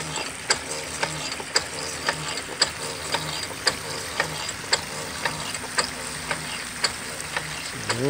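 Century-old Paul pump, driven by an electric motor through a gear and flywheel, pumping with a sharp click about twice a second and a low hum that swells about once a second. Water trickles steadily underneath.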